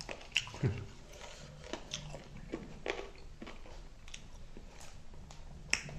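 Chewing and mouth smacking of someone eating chicken wings with rice, with irregular wet clicks throughout. There are sharper ones about half a second in and near the end.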